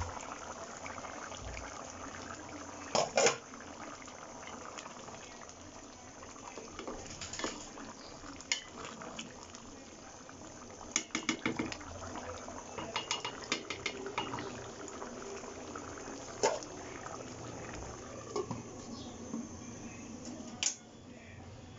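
Kitchen clatter: dishes and metal utensils clinking and knocking now and then, in scattered sharp strikes with a quick run of clinks about halfway through, over a steady low hiss.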